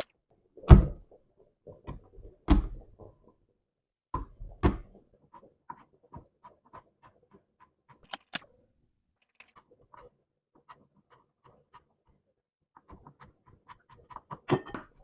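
Knife slicing an onion on a cutting board: a few heavy knocks, then light, even taps at about two a second, with two sharp clicks near the middle and another heavy knock near the end.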